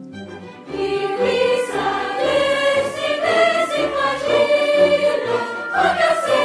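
A mixed choir singing sustained chords with an orchestra. A new, louder phrase begins about a second in.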